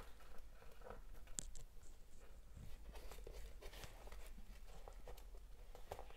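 Faint scratchy rustling and small irregular clicks of waxed polyester threads being handled and pulled tight while tying micro-macramé knots, with fingers brushing a hardboard clipboard.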